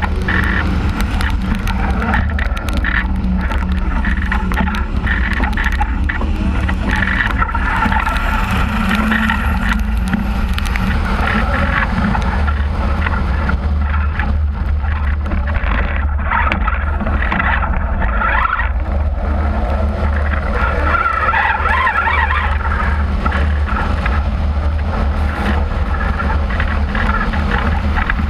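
Wind buffeting an action camera mounted on a fast-moving camera car, over car engine and tyre noise on a wet race track.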